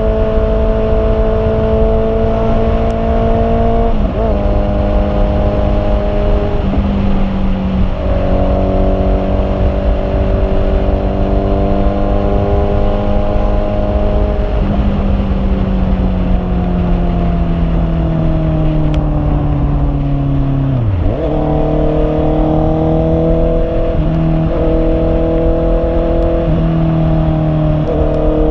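Honda CB650R's inline-four engine running at steady revs for several seconds at a time. Its pitch dips briefly every few seconds, slides slowly downward for several seconds, then dips sharply about two-thirds of the way through before holding steady again.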